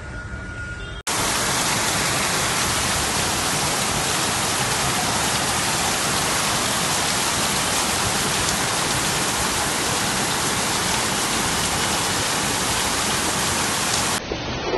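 Heavy monsoon rain pouring down, a loud, dense, steady hiss. It cuts in abruptly about a second in and cuts off abruptly near the end.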